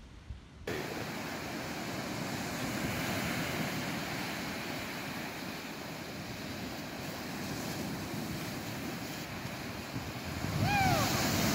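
Ocean surf breaking and washing up a sand beach, a steady rush with some wind on the microphone. Near the end it swells, and a short cry falls in pitch.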